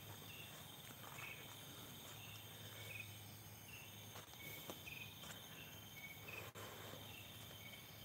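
Faint night insects: crickets giving short chirps about once a second over a steady high insect drone.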